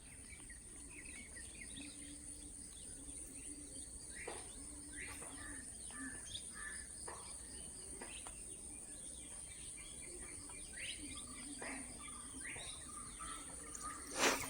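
Scattered bird chirps over a steady high-pitched insect drone, with one short knock near the end.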